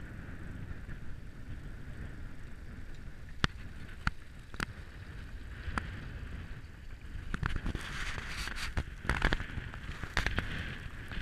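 Wind rumbling on the microphone during a walk down a rocky mountain trail, with sharp clicks and crunches of footsteps on stones, a few at first and then coming thick and fast in the second half.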